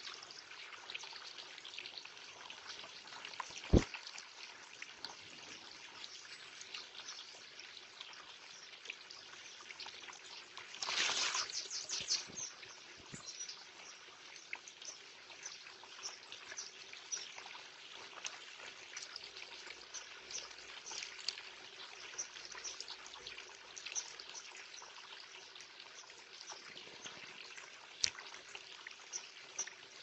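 Small garden water feature trickling steadily while a Eurasian blackbird bathes in it, with light splashes throughout and a flurry of splashing about 11 seconds in. A single sharp knock about 4 seconds in is the loudest sound.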